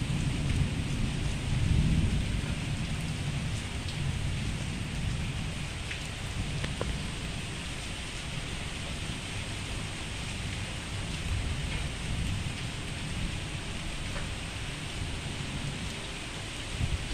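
Steady rain with thunder rumbling low underneath, loudest about two seconds in and then dying down to a weaker rumble.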